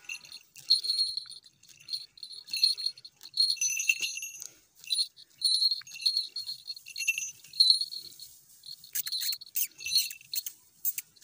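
Small brass falconry bell on a goshawk's leg jingling in short, irregular shakes as the hawk moves over its partridge kill. A few sharp crackles come near the end.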